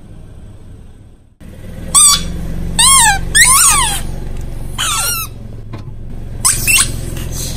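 Squeaky rubber toys being squashed under a car tyre, letting out about half a dozen short, high squeals that bend up and down in pitch, over the low steady hum of the car's engine.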